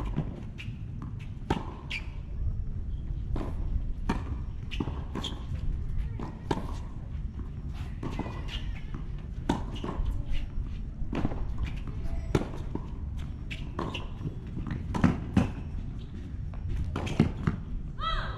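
Tennis rally on a hard court: racquet strikes on the ball and ball bounces, a sharp crack every second or so, some loud and near, some faint and far, with quick footsteps between them. A brief pitched voice-like call near the end.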